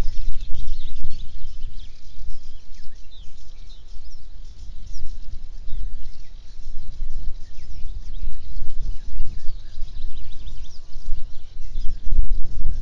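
Wind rumbling on the microphone in uneven gusts, with many small birds chirping and twittering throughout.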